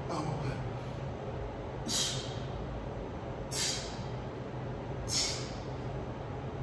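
A man's forceful exhalations from the exertion of holding an elbow plank, a short breath out about every second and a half, over a steady low hum.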